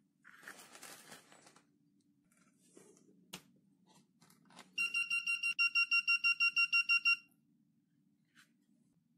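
Hymseann SNS-2V lathe digital readout beeping as it powers up: a click of its rocker power switch, then about two and a half seconds later a rapid string of high, steady-pitched electronic beeps, the loudest sound here. Plastic film rustles near the start.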